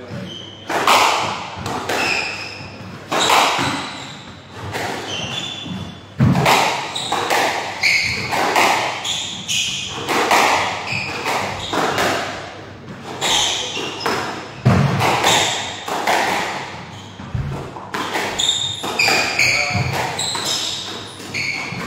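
Squash rally: the ball struck by racquets and hitting the court walls about once a second, each hit echoing in the enclosed court, with short high squeaks of court shoes on the wooden floor between hits.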